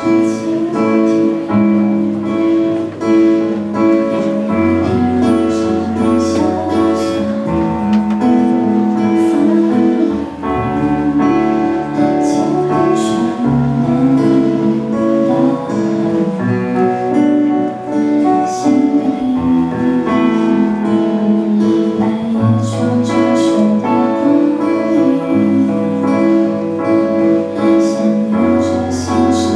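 Live band playing a pop song: electric and acoustic guitars, keyboard, bass and drums with cymbals, and a woman singing into a microphone.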